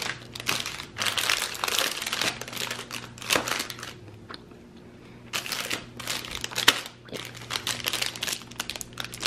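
Alani Nu Fit Snacks protein bar wrappers crinkling in several bursts as they are gathered, stacked and picked up by hand.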